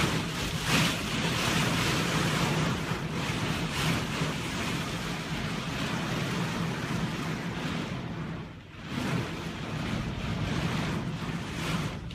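Storm wind and heavy rain blasting across a phone's microphone as a dense, steady rush of noise that swells in gusts and eases briefly about two-thirds of the way through.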